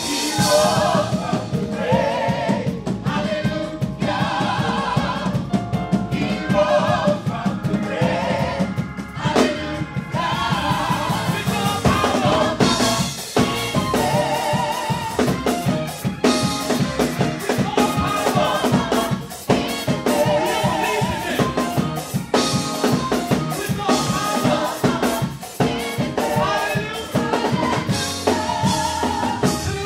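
A gospel vocal group sings live over a band of drum kit and keyboards, with several voices at once and a steady drum beat.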